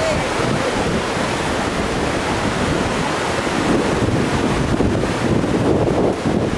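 Wind buffeting the microphone: a steady, rough rushing noise.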